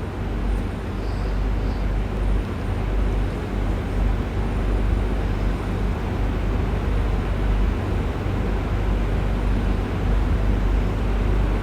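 Domestic cat snoring, a steady low rumble picked up close to the microphone.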